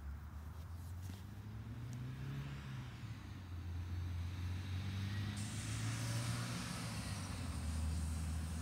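A car passing on a road, its low engine rumble growing louder toward the end. A high steady hiss comes in about five seconds in.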